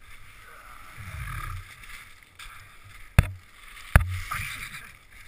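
Two sharp knocks about a second apart, amid rustling and handling noise, as a loose foot shift lever is worked back onto an ATV's shift shaft with the engine off.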